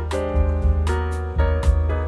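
Background music: piano chords over a steady bass beat.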